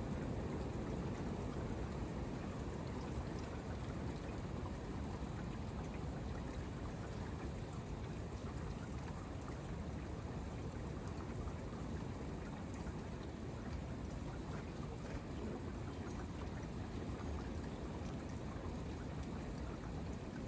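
Steady rain and wind: a constant rushing noise with a deep rumble underneath and a fine patter of drops on top.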